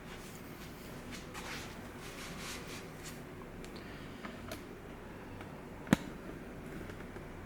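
Quiet handling of a car stereo head unit: faint rustles and light taps, with one sharp click a little before the end.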